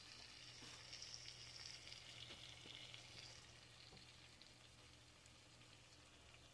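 Faint sizzling from a hot pot of seafood rice cooking in butter, fading after about three seconds, over a low steady hum.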